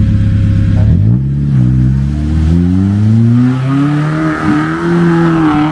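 The ZAZ 968M off-roader's 2.5-litre ZMZ-405 petrol engine revving hard as it pushes through deep mud: the pitch dips about a second in, then climbs steadily for several seconds. In the second half a hiss from the churning tyres joins in.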